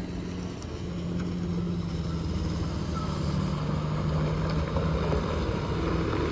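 Steady engine hum of a bus and other heavy vehicles coming through a stalled traffic queue, growing slowly louder.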